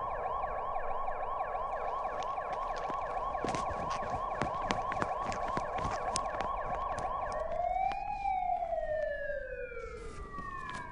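Police siren warbling in a fast yelp. About three-quarters of the way through it changes to a slow wail that rises once and then falls away.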